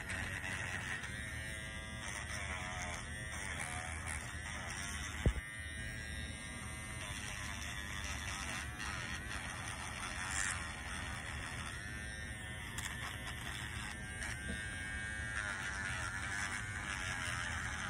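A small handheld electric tool buzzing steadily against a tooth being shaped with glass-ionomer filling material, its pitch wavering up and down as it is pressed on and eased off. A single sharp click about five seconds in.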